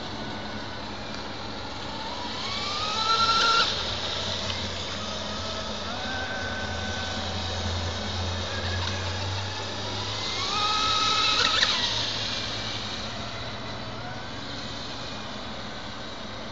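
Radio-controlled model boat's new motor whining as the boat speeds across the water, the pitch and loudness rising in two surges, about three seconds in and again about ten seconds in.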